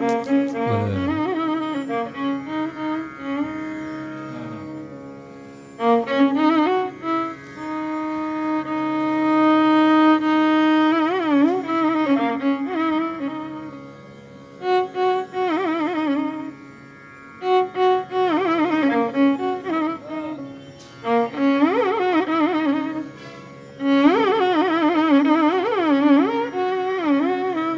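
Instrumental background music in a Carnatic style: a solo melodic line of held and wavering, sliding notes over a steady low drone.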